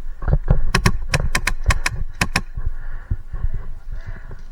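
Airsoft gun firing a quick, uneven string of sharp shots, about nine in under two seconds, starting just under a second in. Low dull thuds run underneath.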